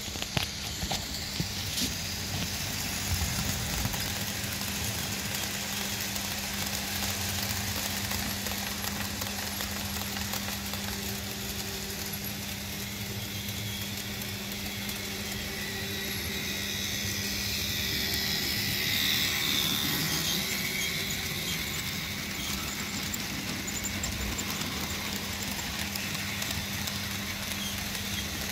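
Model diesel locomotives (a Fleischmann V100 and a Roco V90) running on the layout: a steady electric motor hum and whir, with a swell of louder, brighter running noise about two-thirds of the way through as a train passes close by.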